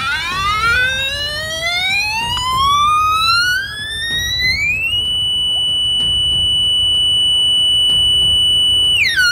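Gradiometer audio tone from the FGM 3 PRO magnetometer kit's VCO, gliding steadily up in pitch as a screwdriver is brought toward the fluxgate sensor. It then holds one steady high tone for about four seconds and drops and wavers near the end as the magnetic signal changes.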